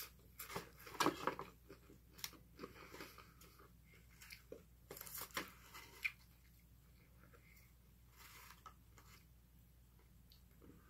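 Chewing and mouth sounds of someone eating chicken nuggets, with scattered small clicks and rustles, most of them in the first half.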